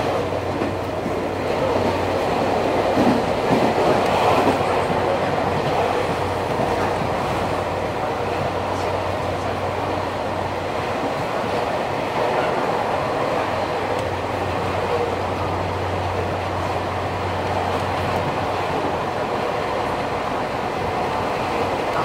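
Nankai 2000 series electric train, with Hitachi early GTO-VVVF inverter drive, running at speed and heard from inside the car: a steady rumble of wheels on the rails over a low steady hum.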